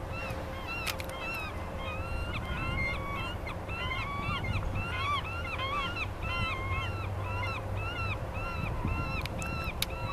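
A flock of birds calling together: many short, arching calls repeated rapidly and overlapping throughout, over a low rumble of wind. A few sharp clicks sound about a second in and near the end.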